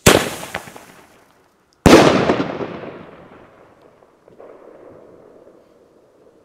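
Two firecracker bangs about two seconds apart, the second one louder, each followed by a long echo that dies away.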